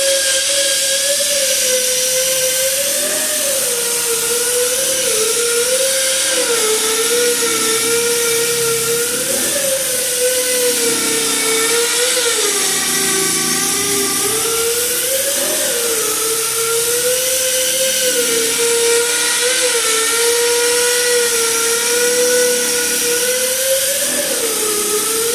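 Power tool stripping paint from a car's steel fender, whining steadily, its pitch dipping and recovering again and again as it is pressed onto the panel and swept back and forth.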